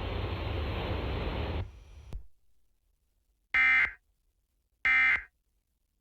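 Emergency Alert System end-of-message data tones: two short, harsh electronic bursts a little over a second apart, the coded signal that closes the broadcast alert test. Before them a steady hiss cuts off about two seconds in.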